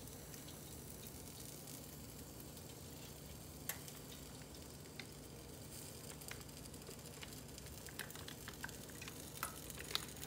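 Milk poured from a carton into a pan on the stove: a faint, steady trickle and hiss, with a few light clicks and crinkles from the carton, more of them near the end as it is squeezed empty.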